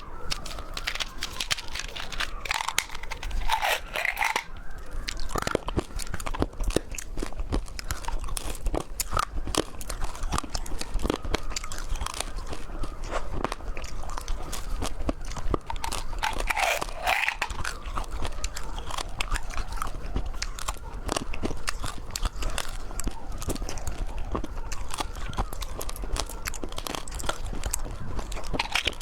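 Close-up chewing and crunching of rainbow candy: a dense run of irregular crisp crunches and mouth clicks as the candies are bitten and chewed.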